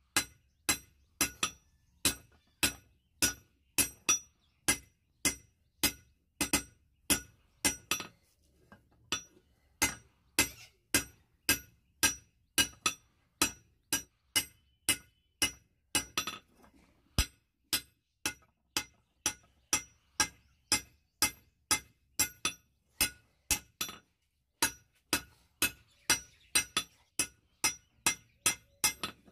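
Hand hammer striking glowing-hot rebar on a steel anvil block: steady blows about two a second, each with a bright metallic ring, broken by a few short pauses.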